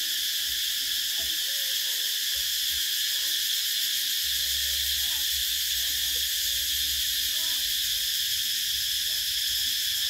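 Cicadas calling in a loud, steady, high-pitched drone that never breaks. A low rumble on the microphone comes in about four seconds in.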